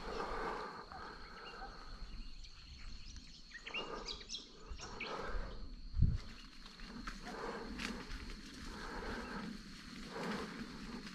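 Footsteps through dry grass and heavy breathing of a person moving on foot, with a steady high insect drone behind. One dull thump about six seconds in.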